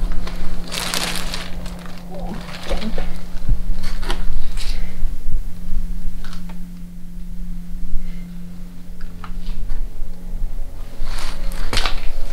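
Steady low electrical mains hum in a powered bunker, with short bursts of rustling and crinkling about a second in, near three seconds and again near the end.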